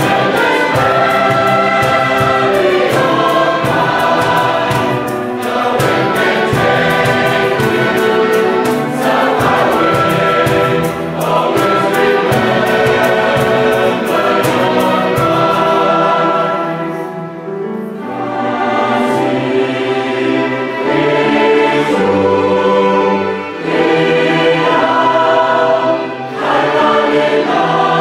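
A mixed choir singing with a string orchestra accompanying. A fast, even ticking rhythm runs under the music for the first half and stops a little past the middle.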